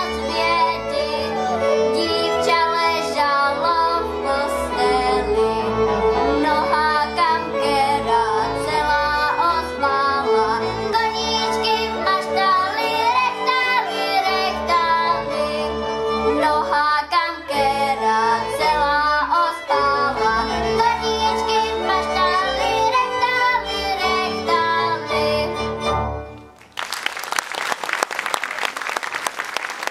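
A girl sings a Moravian folk song to the accompaniment of a cimbalom band led by violin. The music stops about 26 seconds in, and the audience breaks into applause.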